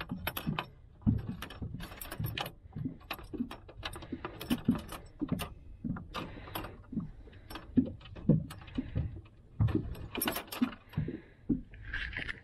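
Clatter of a clear plastic tackle tray full of musky bucktail lures being handled, with the lures' metal hooks and hardware clicking and rattling as one is picked out. The clicks and knocks come irregularly, mixed with dull thuds of the tray against the boat.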